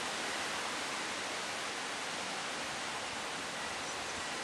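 Steady, even outdoor hiss with no distinct engine or wheel sound in it.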